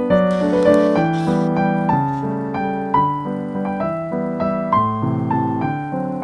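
Background piano music: a light melody of quick, evenly paced notes over a moving bass line.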